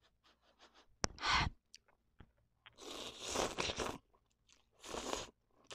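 Close-up eating sounds of instant noodles: a sharp click about a second in, then noisy slurps as forkfuls of noodles are sucked in, the longest about three seconds in and a shorter one near the end, with wet chewing between.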